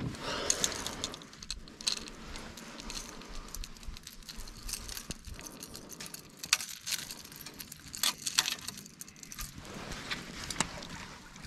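Light irregular clicks and rattles over a soft hiss of water, from a kayak and its gear on the move.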